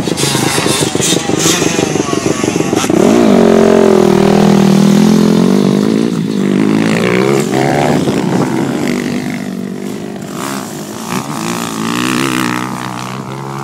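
Dirt bike engines running and revving, the pitch rising and falling, loudest from about three to six seconds in and revving again near the end.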